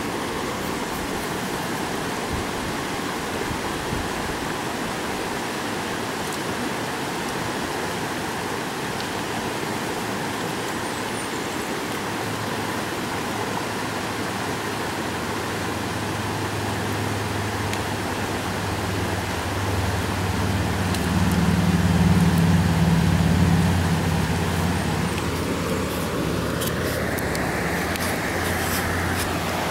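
Steady rush of a rocky stream. From about halfway in, a motor vehicle's engine hum swells, is loudest about two-thirds of the way through, then eases. Near the end a rising whine and a few light clicks are heard.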